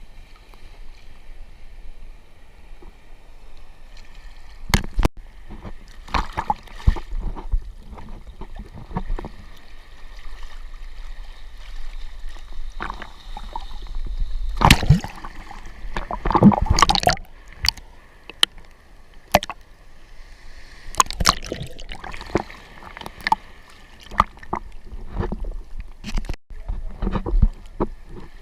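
Seawater splashing and sloshing around a GoPro in its waterproof housing in the surf, in irregular bursts over a low steady rumble, loudest about halfway through.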